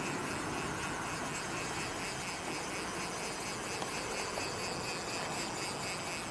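Steady rushing noise of a fast-flowing river, with a low, unsteady rumble underneath.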